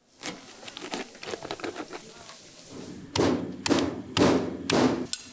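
Scattered light clicks and knocks, then four heavy thuds about half a second apart.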